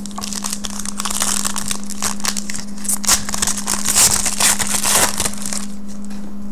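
Clear plastic wrapper of a trading-card pack crinkling as it is opened and crumpled in the hands, a dense run of crackles that stops about five and a half seconds in.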